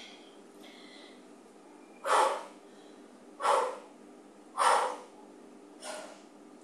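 A woman's forceful breaths under exertion while pressing dumbbells overhead: three loud short exhalations from about two seconds in, roughly a second apart, then a softer one near the end.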